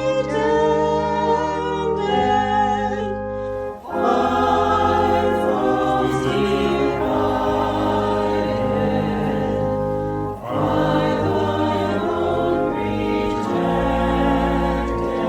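A choir singing a sacred anthem with instrumental accompaniment, in long held chords, with brief pauses between phrases about four and ten seconds in.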